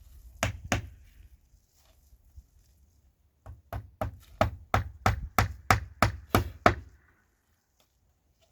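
Hammer blows on wood, driving nails: two strikes, a pause, then a quick, even run of about a dozen strikes, about three a second.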